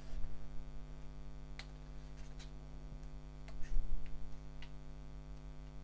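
Pages of a paperback manga volume being turned and handled: a few scattered light paper ticks and rustles, with a louder low bump about four seconds in, over a steady electrical hum.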